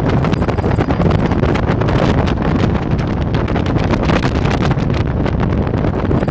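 Wind buffeting the microphone on a speeding jet boat, over the steady noise of the boat's engine and rushing water.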